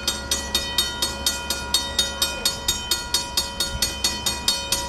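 Railroad grade-crossing warning bell ringing in rapid, evenly spaced strikes, about four a second, while the gate arms lower. It is the warning that a train is approaching.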